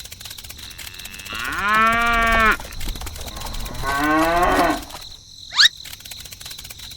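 Cow mooing twice: a long, steady moo, then a shorter one that rises in pitch. A brief, sharp rising squeak follows near the end.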